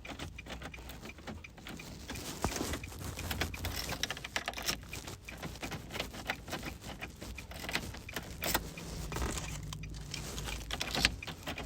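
Keys jangling and clicking in irregular light rattles as a Nissan fob head key is handled and fitted into the ignition, over a low steady hum.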